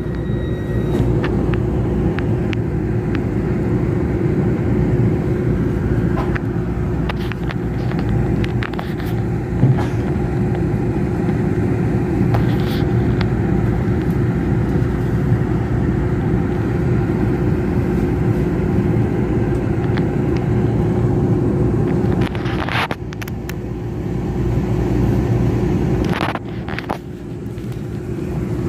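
Taiwan Railway R100-class diesel-electric locomotive R130 running while shunting: a steady low engine rumble with a constant hum.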